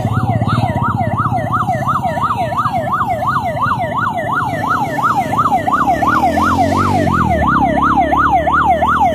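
Rescue ambulance siren on a fast yelp, rising and falling about three times a second, with vehicle engines running underneath. A second, steady siren tone fades out about a second in.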